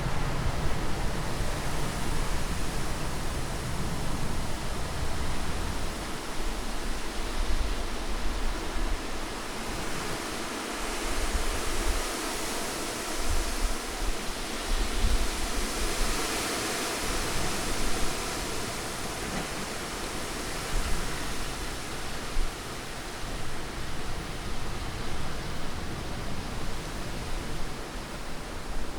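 Continuous wind: a steady rushing hiss over a low rumble, swelling and easing in gusts and brightest about halfway through.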